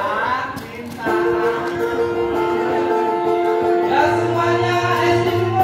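Small acoustic band with acoustic guitars, electric bass and cajon playing live: after a short vocal phrase, long held notes sound over the guitars, and the bass comes in about four seconds in.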